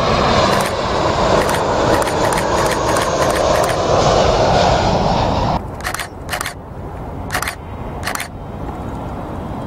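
Jet noise of an Airbus A320 with CFM56 engines passing low overhead on final approach, a loud steady rush. About five and a half seconds in it cuts off abruptly to the quieter noise of a more distant A320neo approaching. Short whirring bursts of the camera's zoom motor come and go throughout.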